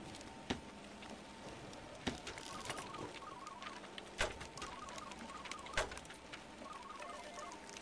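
Soft tapping and clicking sound effects, with four sharper clicks spaced about a second and a half apart, over faint runs of quick little electronic blips.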